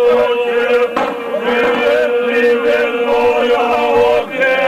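Men singing a folk tune over a steady held drone note, with a wavering, ornamented melody line above. The sound breaks off briefly near the end.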